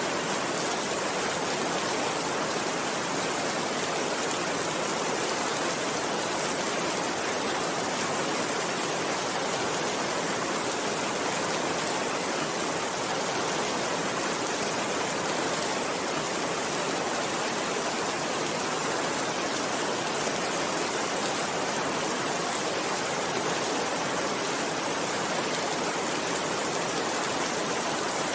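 Steady rainfall: an even, unbroken hiss of many drops, with no single drops or pulses standing out.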